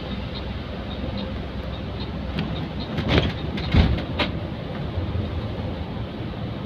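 Bus cabin noise while under way: a steady engine and road rumble, with a few short knocks or rattles around the middle.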